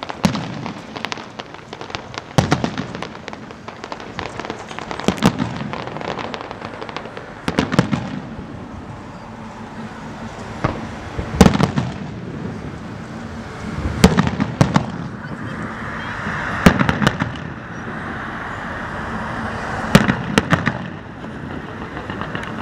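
A fireworks display going off: loud bangs every few seconds, with dense crackling and popping between them.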